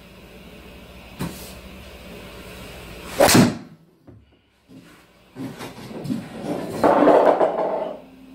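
Driver swung at a teed golf ball in an indoor simulator bay: one sharp, loud crack of the clubhead striking the ball, about three seconds in, with the ball hitting the screen. A few seconds of softer, rougher noise follow near the end.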